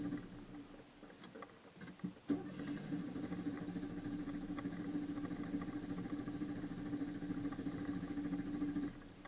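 Renault car engine hard-starting: it dies, there are a couple of seconds of low sound with a few clicks, then it catches suddenly and runs steadily for about six seconds before cutting off near the end.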